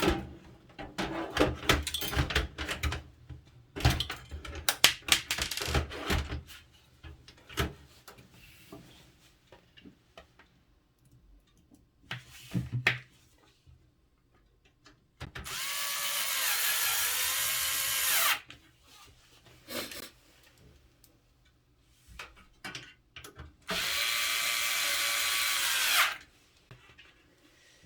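Parts of a computer power supply knocked and clicked together by hand as the oiled cooling fan is refitted, then an electric screwdriver runs twice, about three seconds and then two and a half seconds, driving the screws back in.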